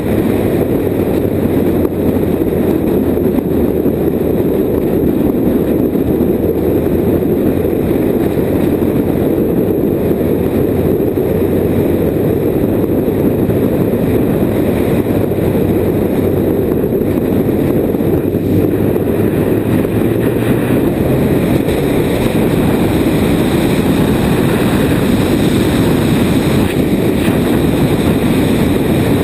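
Sport motorcycle riding at a steady road speed: its engine running evenly under a constant rush of wind and road noise, without revving or gear changes.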